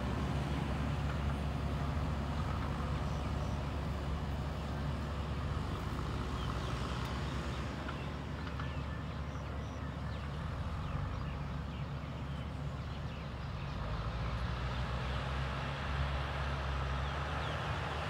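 JCB backhoe loader's diesel engine running steadily as the machine moves, a low engine hum.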